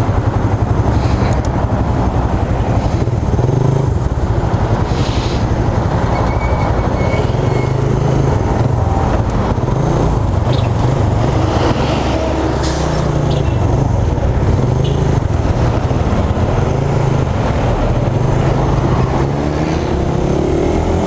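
Suzuki Raider R150 carburetted single-cylinder four-stroke motorcycle engine running as the bike pulls away and rides through city traffic. Its pitch rises and falls with throttle and gear changes and climbs near the end as it accelerates, with the rumble of surrounding traffic behind it.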